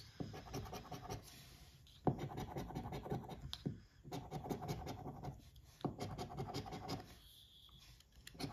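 A coin scraping the latex coating off a paper lottery scratch ticket in quick back-and-forth strokes. The scratching comes in several spells with short pauses, including a lull of about a second near the end.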